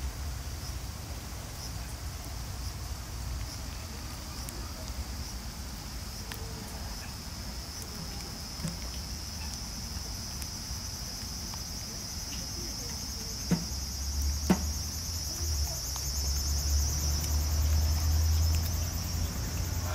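Steady high-pitched insect chorus, a shrill trill that grows louder in the second half, over a low rumble. Two sharp clicks about a second apart come in the latter half.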